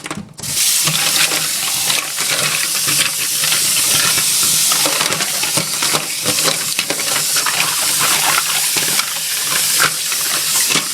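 Refrigerator door dispenser running continuously, a dense rushing noise full of small clicks over a low steady motor hum.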